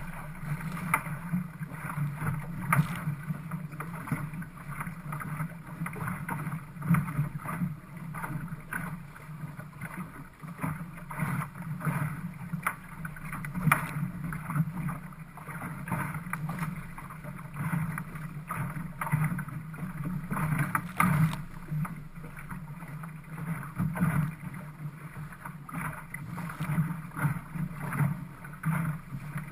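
Water rushing along the hull of a GP14 sailing dinghy under way, with irregular slaps of water against the boat.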